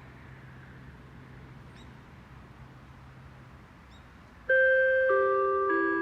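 After a few seconds of quiet outdoor ambience, a disaster-prevention radio loudspeaker plays a descending chime starting about four and a half seconds in. Its clear bell-like notes step down in pitch about every half second. This is the closing chime of the J-Alert transmission test broadcast.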